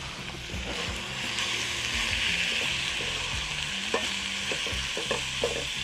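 Beef sizzling in a hot cast-iron skillet with a steady hiss, and a spatula stirring it, with a few sharp scrapes and taps against the pan in the second half.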